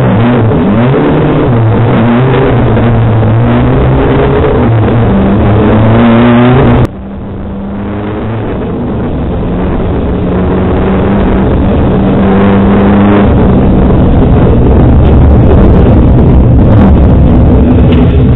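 Rally car engine heard from inside the cabin, revs rising and falling for the first several seconds. About seven seconds in the sound drops off suddenly, then builds steadily back up as the car accelerates along the stage.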